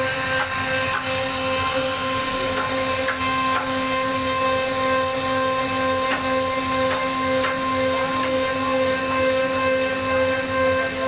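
CNC router spindle running at a steady high whine as its bit carves a wooden door panel, with a rasping cutting noise and scattered light ticks.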